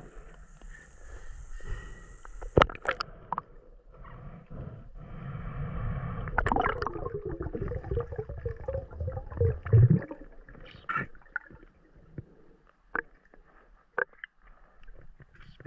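River water gurgling and sloshing, with scattered sharp knocks and clicks. A louder, rumbling stretch of water noise comes in the middle.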